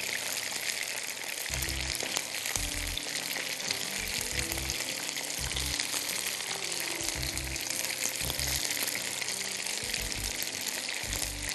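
Batter-coated chicken pieces deep-frying in hot oil: a dense, steady sizzle. Soft background music plays underneath.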